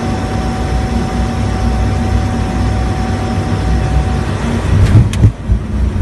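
Steady drone of an ATR-72's twin turboprop engines and propellers heard in the cockpit during the flare, with a thin steady tone that stops about four seconds in. Near the end come a few sharp knocks, the jolt of the wheels touching down on the runway.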